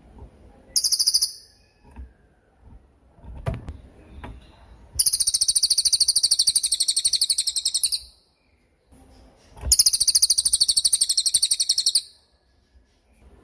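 Cililin songbird singing sharp, very high-pitched rapid trills: a short burst about a second in, then two long trills of about three seconds each, from about five and ten seconds in.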